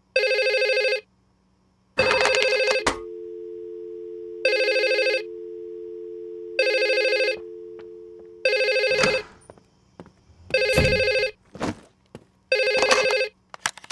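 Telephone ringing in short, identical bursts about every two seconds. Clicks come about two seconds in, and a steady low tone sounds under the middle rings.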